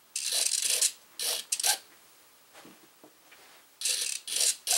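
Ultra-micro servos of an E-flite UMX PT-17 buzzing in short bursts as they drive the elevator up and down: a longer burst at the start, two short ones about a second in, and three more near the end.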